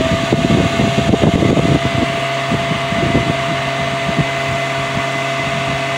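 A 3-inch Attwood Turbo 12-volt inline bilge blower runs steadily at full speed: a steady whine over a rush of air, with irregular low buffeting thumps during the first two seconds or so.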